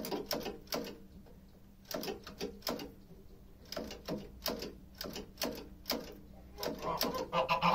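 Geese pecking at a push lawn mower's engine and controls: irregular hard taps and clicks of their bills, several a second in short runs with pauses between. Near the end the geese start honking.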